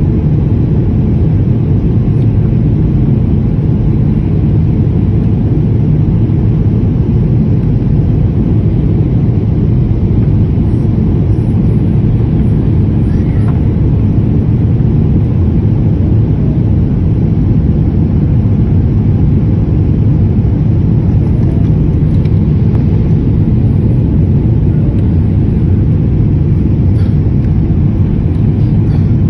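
Steady low rumble of cabin noise inside a Boeing 787-8 airliner in descent: engine and airflow noise heard through the fuselage, with no changes.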